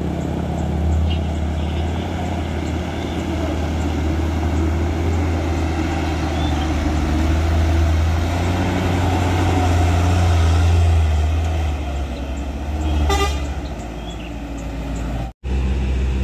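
Heavy truck engine running at low revs, louder in the middle and easing off near the end, with one short horn toot about thirteen seconds in.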